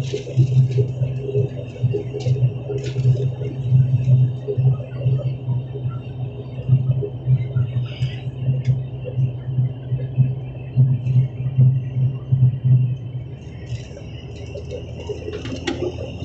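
ATR 72-600 turboprop engines and propellers running at low power, heard inside the cabin as a steady low drone that pulses gently. The drone fades out near the end.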